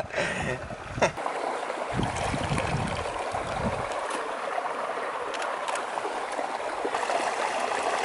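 Shallow creek water flowing over rocks: a steady rushing and gurgling, with a brief low rumble about two seconds in.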